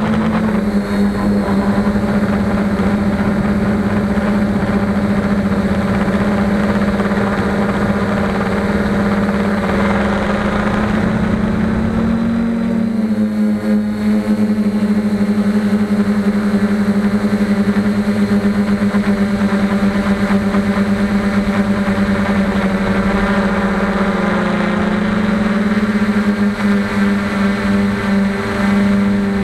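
Quadcopter's four Emax MT2216 810KV brushless motors and propellers whining steadily in flight, heard from the camera on board, with the pitch shifting slightly about 12 seconds in and again near 25 seconds.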